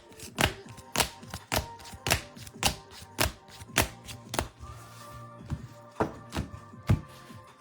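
Trading cards being laid down one at a time on a table: a dozen or so sharp taps, a little under two a second, with faint background music underneath.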